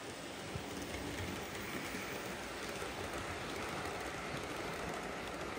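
OO gauge model train, a steam locomotive hauling Pullman coaches, running along the track: a steady rumble of wheels on the rails that grows a little louder about a second in as the train comes past.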